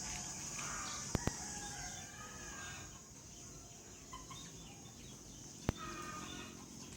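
Chickens clucking and chirping in short calls over a steady high insect drone, with a few sharp clicks: two close together about a second in and one near the end.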